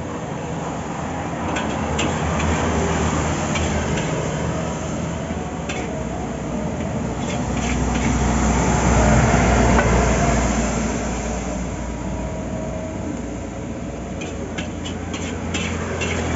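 Mie goreng sizzling in a steel wok, with a metal spatula scraping and clinking against the wok in short clusters near the start and again near the end. Road traffic runs underneath as a steady rumble, with a heavy vehicle passing and loudest about halfway through.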